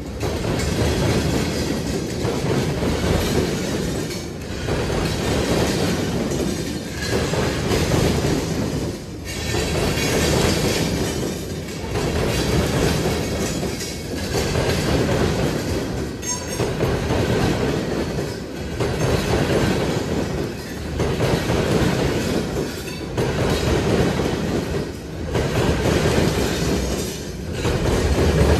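Freight train's covered hopper cars rolling past, steel wheels clattering on the rails. The rumble swells and dips about every two seconds as each car goes by.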